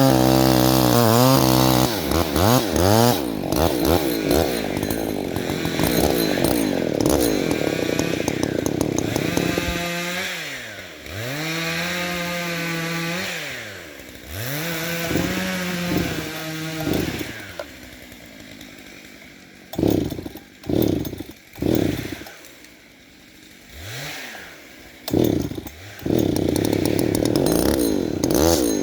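Chainsaw running at full throttle, its engine pitch sagging and recovering as it cuts, then revved up and down repeatedly. For a stretch past the middle it drops to a quieter idle broken by a few short sharp revs, then goes back to full throttle near the end.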